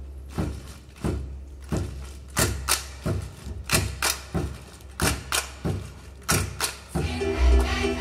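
Percussion beat of sharp knocks with deep thumps, in an uneven pattern of paired strokes, as the lead-in to a song. About seven seconds in, the band comes in with a bass line and held notes.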